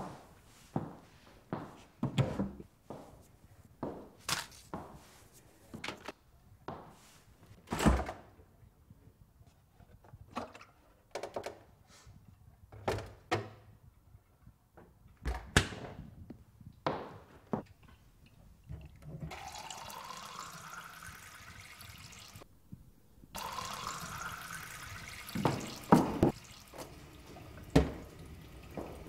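A string of separate knocks and clicks of things being handled in a kitchen, then a kitchen tap running into the sink, with a rising tone as a container fills under it. The tap runs for about three seconds, stops briefly, and runs again to the end, with a couple of knocks over it.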